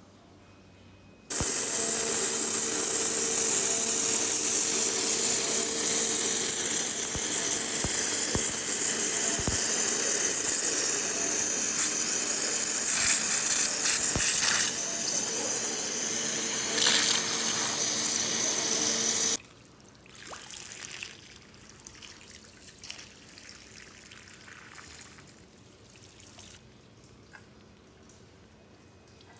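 Waterjet cutter's jet cutting a marble slab: a loud, steady hiss with a hum underneath that starts suddenly about a second in and cuts off abruptly some eighteen seconds later. Afterwards there is only a faint, irregular clatter of cut marble pieces being handled on the wet table.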